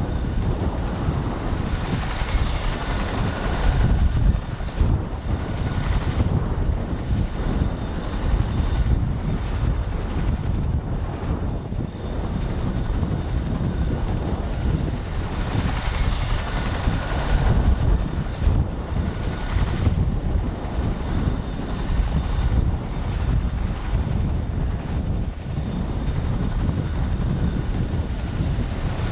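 CH-47 Chinook tandem-rotor helicopter taxiing with both rotors turning and its twin turboshaft engines running: a steady, deep, uneven rotor rumble with a thin high turbine whine over it.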